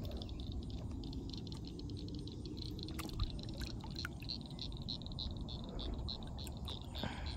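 Light water sounds as a smallmouth bass is lowered into shallow water by hand, over a steady low rumble. A faint, even train of high chirps, several a second, runs behind it, with a couple of small clicks about three seconds in.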